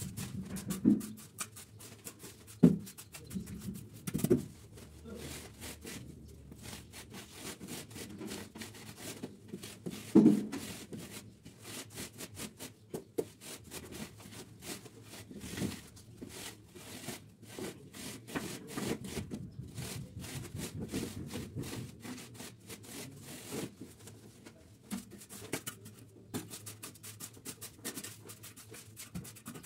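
Wooden straightedge scraped over a damp sand-cement mortar bed as it is screeded level, a repeated gritty rasping, with a few louder knocks.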